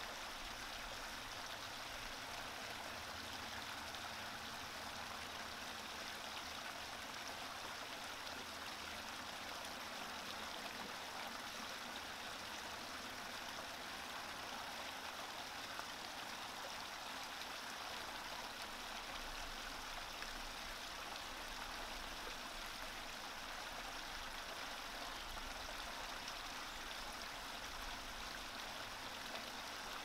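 Shallow, rocky creek running over stones: a steady, even rush of flowing water.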